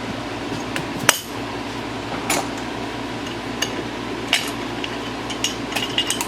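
Metal tools and engine parts clinking and knocking as the cylinder head is worked off a Honda engine block: a sharp clank about a second in, then scattered lighter clinks that bunch together near the end.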